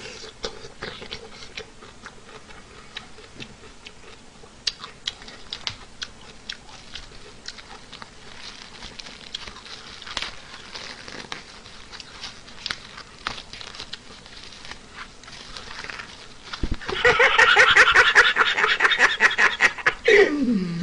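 A person eating close to a microphone: many small clicks and smacks of chewing and handling food. About seventeen seconds in comes a loud, high, pulsing vocal noise from the eater lasting a few seconds, sliding down in pitch as it ends.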